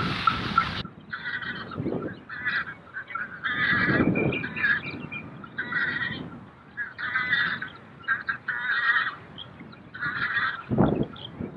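Geese honking over and over in short, harsh calls, with a few dull low knocks underneath.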